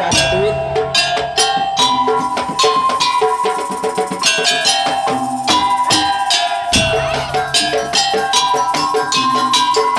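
Madurese musik daul (tong-tong) ensemble playing: rapid, dense strikes on wooden slit drums and drums, with heavy low drum hits at the start and again about seven seconds in, under a held melody that steps between a few notes.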